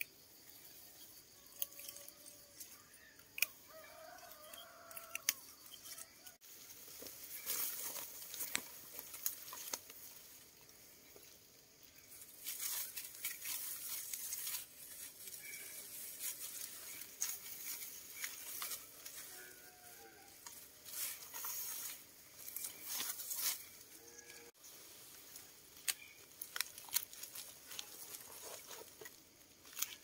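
Rustling of dry rice stalks and surrounding grass as rice panicles are picked by hand and gathered into a bundle. It comes in irregular bursts with scattered sharp clicks.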